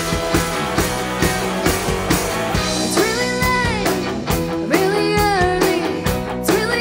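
Rock band playing live: drum kit, electric guitar and bass, with a woman's lead vocal coming in about three seconds in.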